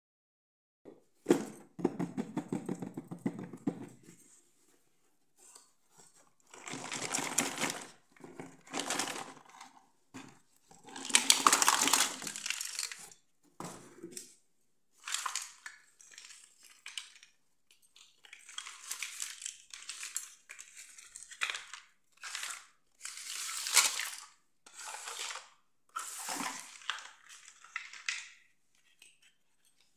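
Plastic fashion dolls and small plastic toy accessories being handled, moved and set down on a mat: a string of irregular rustling and clattering bursts, each a second or two long, with short pauses between.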